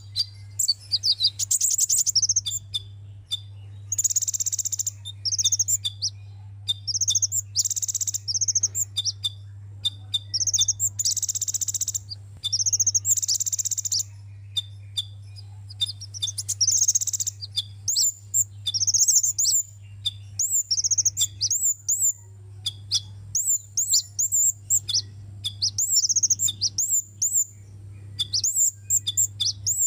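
Sunbird song: rapid, high chattering phrases of sharp chirps and fast trills, with a few longer buzzy trills, over a steady low hum.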